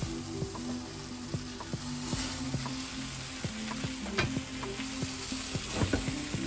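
Jollof rice sizzling in a pot on the stove: a steady frying hiss with scattered light clicks, over background music.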